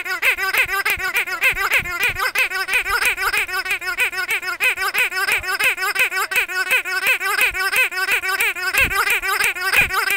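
Pink squeaky dog toy squeezed over and over by hand, a fast unbroken run of short squeaks, several a second, each with a wobbling pitch.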